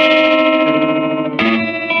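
Electric guitar played through a Silvertone 1484 tube amp, on channel 2 with the tremolo all the way up: a chord is struck and rings for over a second, then a new chord is struck.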